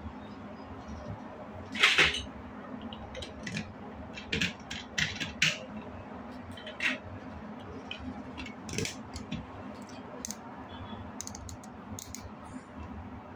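Plastic building blocks being handled and snapped together: scattered sharp clicks, the loudest about two seconds in, over a faint steady hum.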